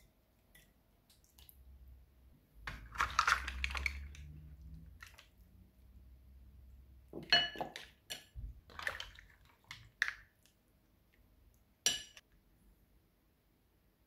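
Soft tofu squished out of its tube into a ceramic bowl, then mussel shells and a ladle clinking against the bowl as mussels and spicy broth are served into it from the pan. There is one more sharp clink near the end.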